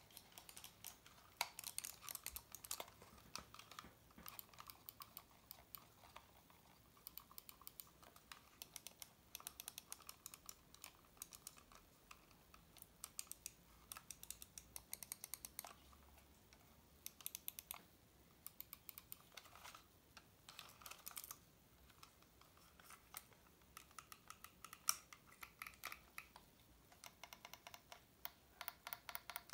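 Faint, quick clicking of two Bloody gaming mice being handled: plastic buttons and scroll wheels clicking, with the shells knocking and rubbing. Near the end the clicks come as an even rapid run.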